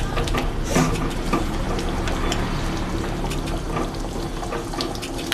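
Water being poured into a pan of chicken curry, a steady splashing pour with small clinks, loudest about a second in.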